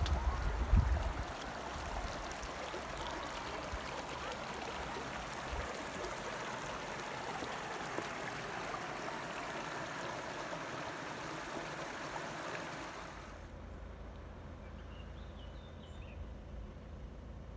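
Shallow rocky mountain stream running over stones, a steady trickling rush of water. About thirteen seconds in it cuts to a quieter low rumble with a few faint high chirps.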